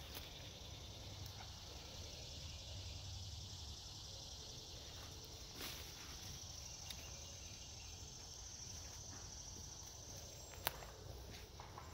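Faint steady drone of insects in summer woodland, with a few sharp snaps of twigs and pine litter underfoot, the loudest a little before the end.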